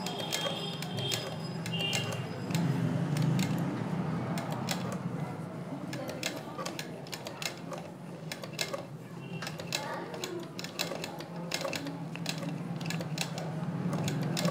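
Black domestic sewing machine worked slowly by its handwheel, stitching through a thick lahenga seam with can-can net underneath: irregular clicking and rattling of the needle mechanism over a steady low hum, the machine turning heavily because of the thick layers.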